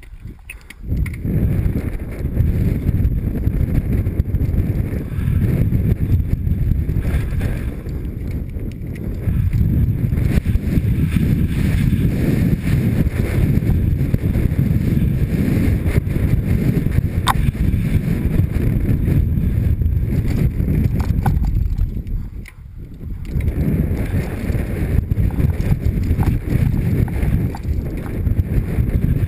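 Mountain bike descending a rough dirt trail at speed, heard through a helmet camera: a dense, steady rumble of wind on the microphone, tyres on dirt and the bike rattling, with a few sharp clicks. The rumble eases briefly just after the start and again about two-thirds of the way through.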